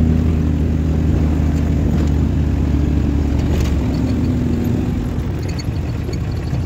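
Car engine running and rumbling heard from inside the cabin while driving, a steady low hum that fades about four to five seconds in, leaving rougher rumble.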